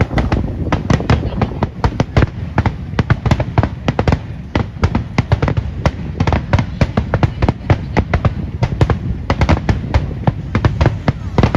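Aerial firework shells bursting in a rapid barrage: deep booms and sharp bangs overlapping several times a second, without a break.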